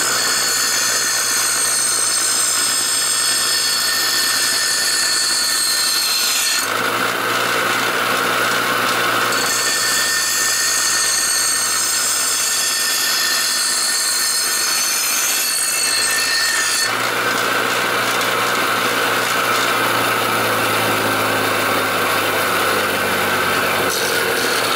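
Bench grinder running with a steel lawnmower blade held against its wheel, grinding the cutting angle onto the edge in slow passes. Under the motor's steady hum, the harsh grinding hiss eases about seven seconds in and again later as the blade is shifted on the wheel.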